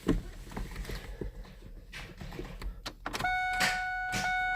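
A few light clicks as the ignition key is tried on a Ford Ranger that does not crank, the truck still dead. About three seconds in, a steady electronic warning chime from the truck starts and keeps sounding, pulsing about once a second.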